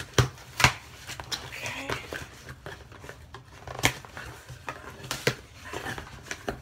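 A cardboard shipping package being opened by hand: four sharp knocks and clicks, with scraping and rustling of cardboard and packing between them.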